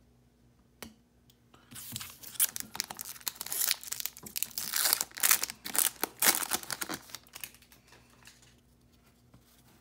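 A foil-wrapped 2019 Topps Series 1 hobby pack being torn open by hand, its wrapper crinkling and tearing in dense, irregular crackles for about six seconds, starting after a single click about a second in.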